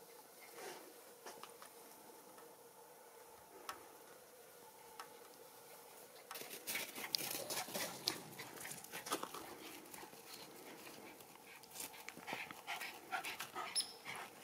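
Schipperke dog panting, with quick irregular crunching in the snow starting about six seconds in.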